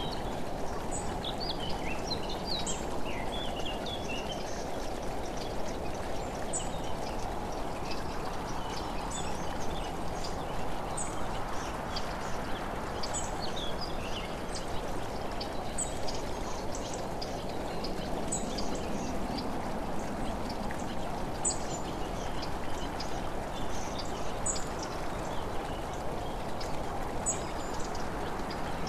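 Steady rushing noise, with short high bird chirps scattered throughout.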